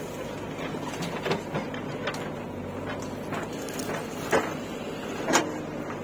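Steady diesel engine drone of a JCB backhoe loader and tractors running at a work site. Several sharp knocks and clanks come from the backhoe's bucket and arm as it empties soil into a tractor trailer and swings back to dig, the two loudest about four and five seconds in.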